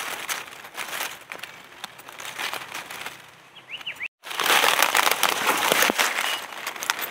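Dry leaves and twigs crackling and rustling as a gloved hand digs mushrooms out of the leaf litter. The sound cuts out for a moment about four seconds in and comes back louder. A bird chirps faintly just before the break.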